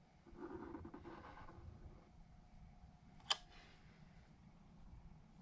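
Faint rustling handling noise, then one sharp click about three seconds in.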